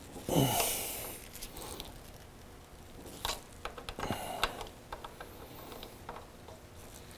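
Pliers working a steel split pin out of a motorcycle's castellated rear axle nut: scattered small metallic clicks and ticks, a few sharper ones around the middle. About half a second in, a short loud breath from the mechanic is the loudest sound.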